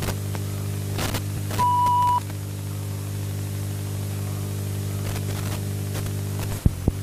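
VHS-style tape playback noise: a steady low electrical hum under hiss and static, with a short steady beep about a second and a half in and a few crackling clicks, one near the end.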